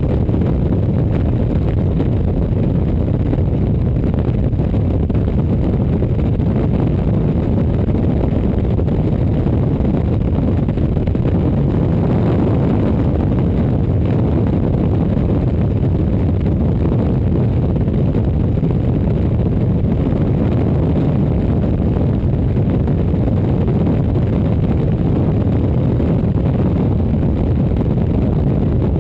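Motorcycle cruising steadily on a paved road, heard from a camera mounted on the bike. The sound is a constant low rumble of wind on the microphone, mixed with engine and road noise.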